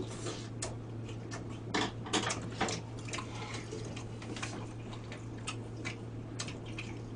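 Eating sounds at a table: chewing and scattered light clicks of chopsticks and spoons against plates and bowls, over a steady low hum.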